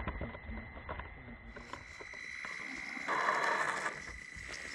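Traxxas TRX-4M RC crawler's small electric motor and gears whining steadily as it climbs rock, with scattered clicks and a louder rush of noise about three seconds in.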